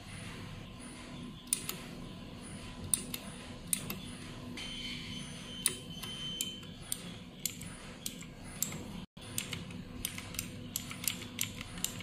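Single keys on a XUNFOX K80 87-key mechanical keyboard with blue switches pressed one at a time, each giving a sharp click. The presses are spaced out at first and come faster in the second half, about two or three a second.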